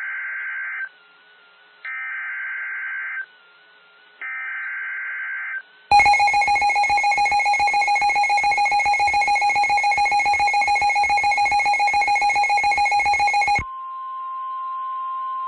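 Emergency Alert System tones: three short warbling bursts of SAME data header, then about seven and a half seconds of the loud, harsh two-tone EAS attention signal, which cuts off abruptly. A steady single tone follows near the end.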